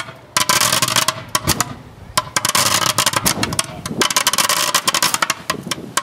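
Firework that shoots flaming balls and reports, going off inside a microwave oven. It gives a loud rushing hiss broken by many sharp cracks and bangs, in bursts of a second or two with short breaks between.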